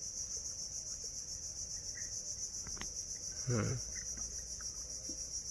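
Steady, high-pitched trilling of an insect chorus, crickets or cicadas, with a short voice-like sound about three and a half seconds in.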